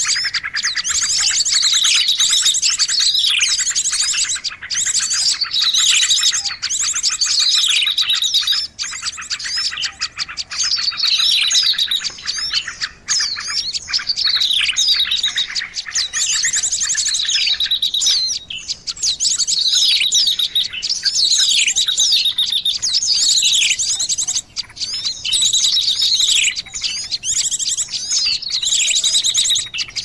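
Bird-lure (pikat) recording of small songbirds: a dense chatter of high chirps, rapid trills and quick falling whistles, repeating over and over with only brief breaks.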